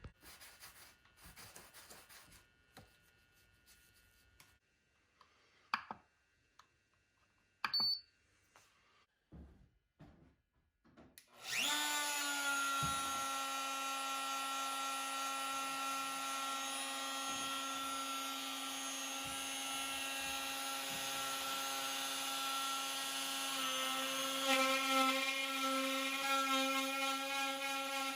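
A CNC router's spindle motor switches on about halfway through and runs with a steady high whine. The tone shifts slightly near the end. Before it starts there are only a few faint clicks and two short sharp sounds.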